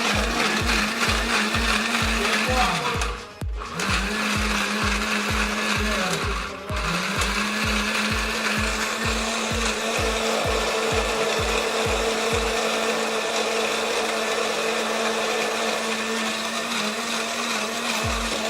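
Electric blender motor running steadily on fruit, stopping twice briefly a few seconds apart (its pitch sinking as it winds down), then starting up again and running on until it cuts off at the end.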